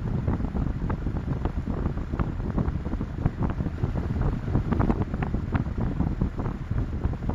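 Dense low rumbling noise with frequent short crackles, steady throughout.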